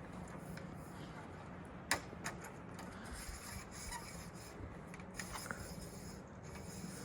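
Light rubbing and scraping with a few sharp clicks, the loudest about two seconds in, over a faint steady low hum.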